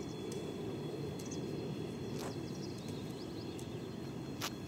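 Outdoor ambience: a steady low rumble, with a short run of high chirps about two seconds in and a sharp click near the end.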